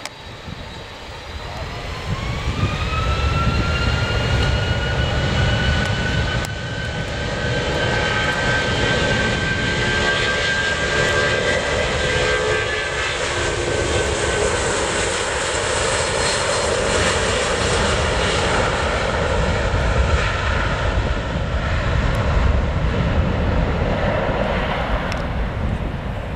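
Boeing 757's twin jet engines spooling up for takeoff: a whine rises in pitch about two seconds in, then a loud steady roar of takeoff thrust as the airliner rolls down the runway. The whine fades about halfway through while the roar continues.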